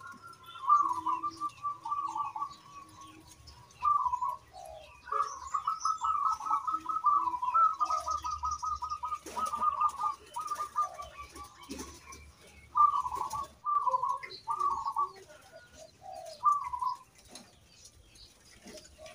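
Local-strain zebra dove (perkutut) cooing in song: several phrases of rapid staccato coo notes, the longest run coming about five seconds in and lasting some three seconds.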